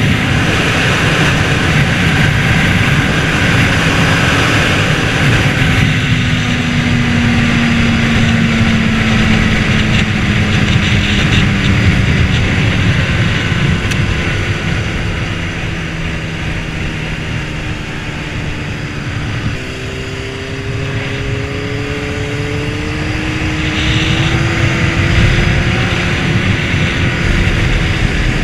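Honda CBR600RR's inline-four engine running under heavy wind rush on the microphone. Its pitch falls slowly for several seconds as the bike rolls off, steps up suddenly about two-thirds of the way through, then climbs again as it accelerates.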